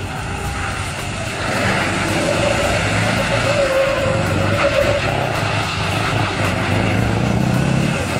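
Diesel engine of a semi-truck tractor unit revving hard as its rear tyres spin in a smoky burnout, getting louder about a second and a half in, with a steady high tyre squeal through the middle.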